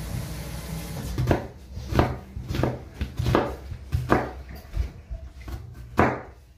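A kitchen knife chopping on a cutting board, a series of sharp chops about one every two-thirds of a second, the last and loudest about six seconds in.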